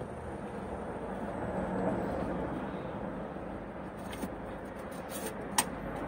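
A steady low background rumble, vehicle-like, with a few light clicks and one sharp click near the end as hands work at parts in the van's engine bay.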